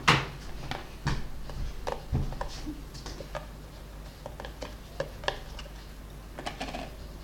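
Irregular clicks and knocks of containers and utensils being handled while making slime, with the loudest knock right at the start and a cluster of light clicks near the end.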